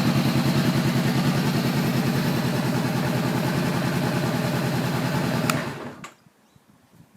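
2013 Honda CBR500R's parallel-twin engine idling steadily through a Two Brothers aftermarket exhaust, with an even pulsing beat. A sharp click comes about five and a half seconds in, and the engine shuts off.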